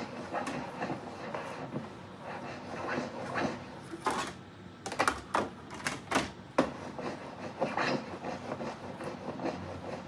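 Rattling, clattering noise with several sharp clicks or knocks bunched together about halfway through.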